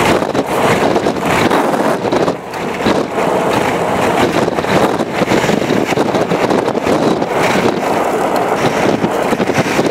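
Steady rushing wind and road noise from a vehicle driving fast, with wind buffeting the microphone in quick flutters.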